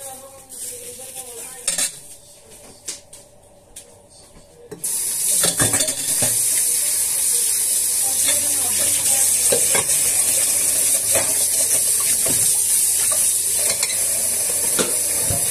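Plastic wrap rustling and a few light clicks, then about five seconds in a steady sizzle of food frying in a hot pan starts suddenly, with occasional clinks of utensils against cookware.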